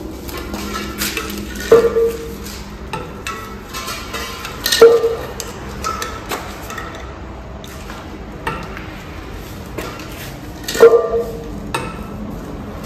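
Pipe wrench on a long extension bar clanking and scraping against the valve of a steel CNG cylinder as the valve is tightened into it. Three loud ringing metal clanks come about two, five and eleven seconds in, with lighter clicks and scrapes between them.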